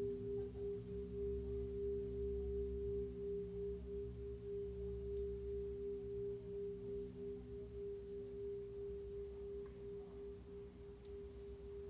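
A steady, pure humming tone with fainter lower tones beneath it, slowly fading: a sustained drone from the ride cymbal and looper. A couple of faint clicks come near the end.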